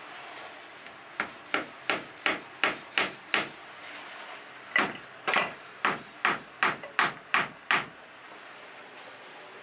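Hatchet blows knocking against a wooden window frame. There are two quick runs of sharp knocks, about three a second, with a pause of about a second and a half between them.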